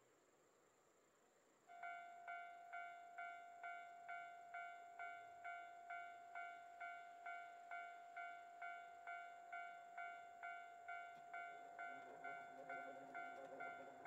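Japanese level-crossing warning bell starting up about two seconds in and ringing steadily, about two clear metallic-toned strikes a second: the crossing signal warning of an approaching train. Insects trill steadily throughout, and a lower, rougher sound joins the bell near the end.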